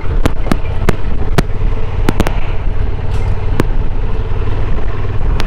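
Honda XL750 Transalp's parallel-twin engine running steadily while riding on a gravel road, with wind noise on the microphone. About eight sharp clicks land at uneven moments throughout.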